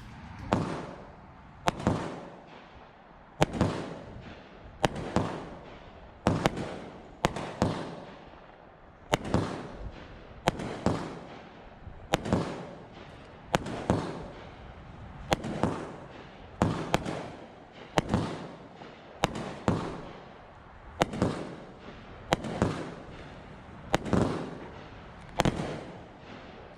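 Consumer fireworks going off in a steady series of sharp bangs, about one every one and a half seconds, each followed by a fading rumble.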